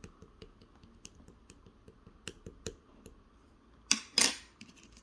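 Clear blue slime being handled, giving scattered small clicks and pops, with two louder crackling pops about four seconds in.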